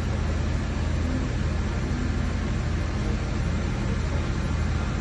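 Diesel multiple-unit railcar idling at a standstill, giving a steady low engine hum.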